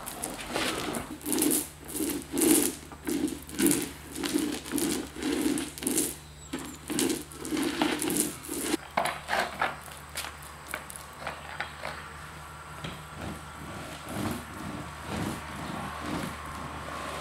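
Paint roller worked back and forth over the painting surface, a rhythmic rolling scrape of about two strokes a second that thins out to sparser, quieter strokes about nine seconds in.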